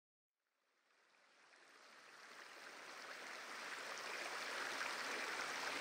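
Shallow stream running over stones and through plants, a steady rush of water that fades in from silence about a second in and grows steadily louder.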